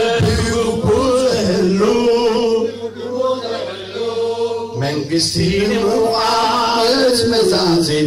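Men's voices singing a chant-like song in long, held, wavering notes. The phrase breaks off briefly about three seconds in and again near five seconds.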